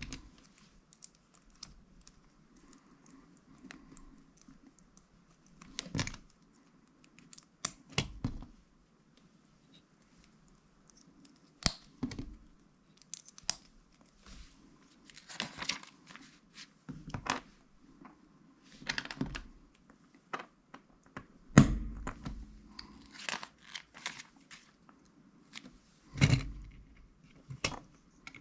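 Small plastic Lego pieces being handled and pressed together: irregular clicks and knocks with light rustling between them, the loudest knock about two thirds of the way through.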